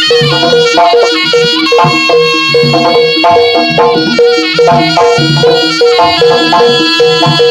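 Live East Javanese jaranan music: a slompret (reed shawm) playing a busy, ornamented melody over a steady beat of struck gongs and drums.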